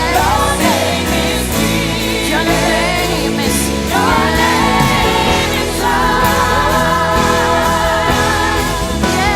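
Live worship music: singers holding long notes with vibrato over a band with steady bass and keyboard.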